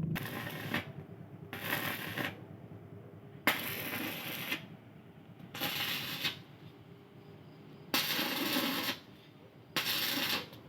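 Fireworks crackling and fizzing in repeated bursts of about a second each, six in all, roughly every two seconds, with a sharp pop about three and a half seconds in.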